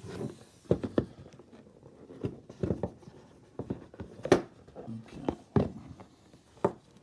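Dimmer switch box being handled and opened: an irregular string of sharp clicks, taps and scrapes of cardboard and plastic packaging.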